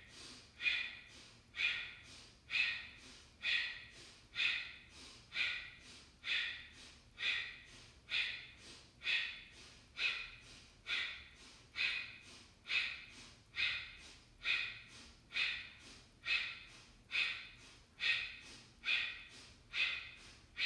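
Kapalabhati breathing: a woman's short, forceful exhalations snorted out through the nose, each a sharp puff that quickly fades, in a steady rhythm of about one a second.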